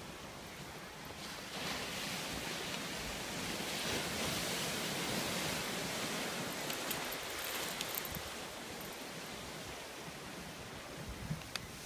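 Waves washing on the shore: a steady rushing that swells up about two seconds in, holds for several seconds, and eases off again near the end.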